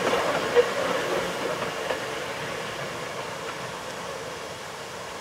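Hakone Tozan Railway electric train running past on its track, fading as it moves away, with a short wheel squeak about half a second in.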